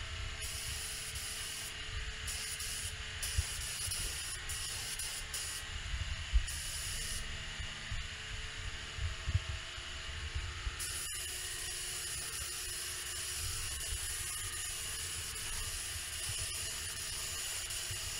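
Gravity-feed paint spray gun hissing as it sprays a car door, in short trigger-pulled bursts over the first several seconds, then a break, then one long steady pass. A low rumble runs underneath.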